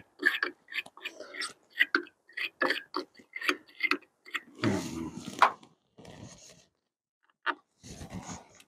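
Metal hand tool worked on a truck battery terminal: a quick, uneven run of clicking, scraping strokes, then a few louder scuffs and handling knocks.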